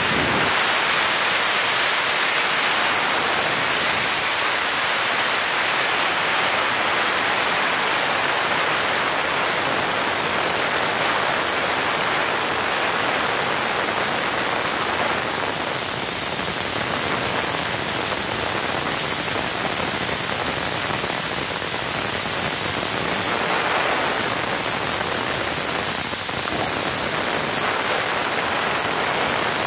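Compressed air venting from the full tank of a 15 HP electric air compressor: a loud, steady hiss of escaping air with no change in pitch.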